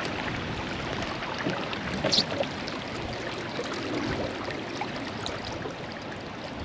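Steady rush and lapping of water along a moving fishing kayak's hull, with a brief high-pitched sound about two seconds in.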